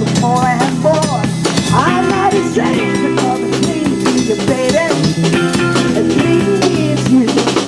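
Live soul band playing: drum kit and bass with guitar, and a lead line that slides and wavers in pitch over the top.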